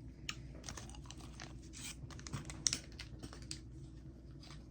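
Candy being chewed: quiet, irregular crunching clicks, with a sharper one about two and a half seconds in.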